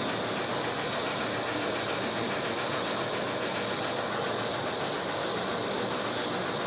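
Steady, even hiss at a constant level, with no distinct clicks or knocks.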